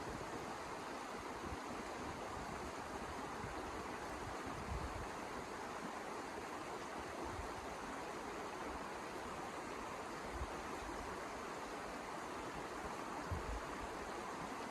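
A steady rushing noise with occasional low thumps, strongest about 13 seconds in.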